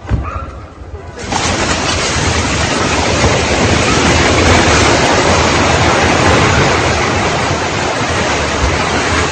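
Multi-storey apartment building collapsing in an earthquake: a thud, then about a second in a sudden loud, steady rushing noise of falling debris and billowing dust that keeps going.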